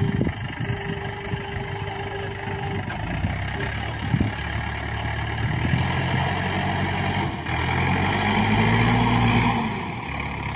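Mahindra 475 DI XP Plus tractor's three-cylinder diesel engine labouring under load, straining to drag a loaded trailer out of deep sand. The revs and loudness climb from about halfway, then fall away shortly before the end.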